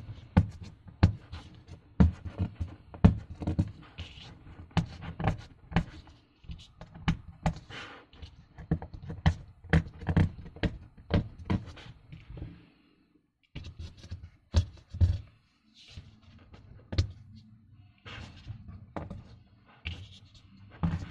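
Fingers and fingernails scratching, picking and pressing at a brittle eggshell vinyl sticker on a cutting mat, making irregular taps, thuds and scrapes as the sticker crumbles into flakes. There is a brief pause about 13 seconds in.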